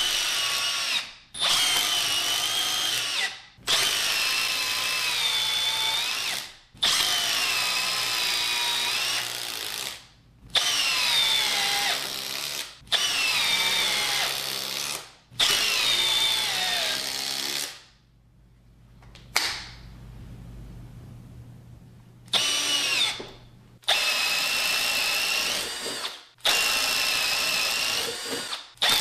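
Milwaukee M12 cordless screwdriver and hex impact driver driving long construction screws into wood, then boring with a wood bit near the end. There are about ten runs of two to three seconds with short pauses between, each a motor whine that drops in pitch as it goes.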